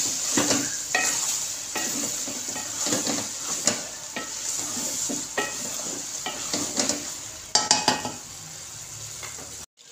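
A spatula stirs and scrapes chana dal and minced meat in a metal pot, the mixture sizzling as it is fried dry on high heat. Irregular scrapes and knocks of the spatula against the pot run over the sizzle, with a few sharper clicks near the end.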